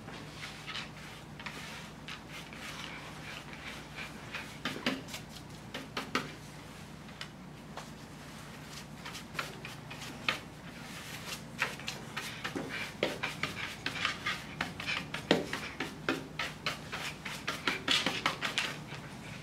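Small hand brush sweeping clipped hair off a rubber-matted grooming table: a run of short scratchy brush strokes and taps, busier and louder in the second half.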